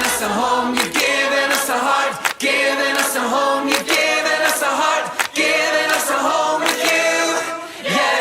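Choir singing a worship song in harmony. The low accompaniment fades out just after the start, leaving the voices almost unaccompanied.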